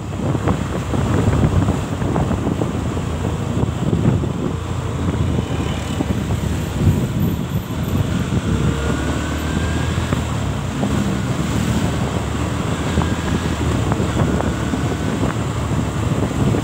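Wind buffeting the microphone of a moving motorcycle, a steady low rushing with the bike's engine running underneath.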